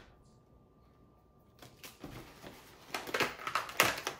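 A zipped pencil pouch being handled and folded up on a table: quiet for about the first second and a half, then a run of irregular rustles and light knocks, loudest near the end.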